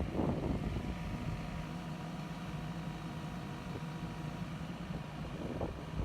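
Diesel engine of a CAT 416F backhoe loader running steadily at idle, with a gust of wind on the microphone at the start.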